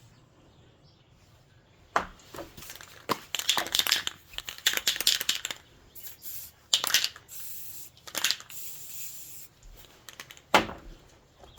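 Aerosol can of black spray paint sprayed in several short bursts of hiss, with a sharp click near the start and another near the end.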